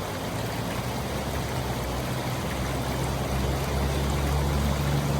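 Shallow creek water running and trickling. A low steady hum underneath grows louder toward the end.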